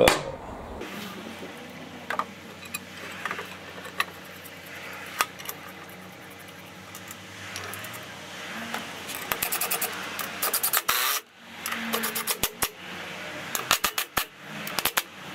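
Small metal clinks and rattles from handling stainless steel machine screws and a timber board on a steel fence bar. From about nine seconds in, several short bursts of quick clicking follow.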